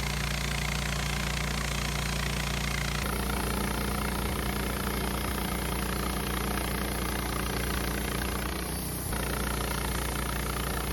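Wood-Mizer LT15 portable band sawmill running, a steady engine sound with a higher hiss joining about three seconds in.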